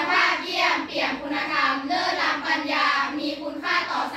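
A group of schoolgirls singing a song together in chorus, with sustained notes that move up and down.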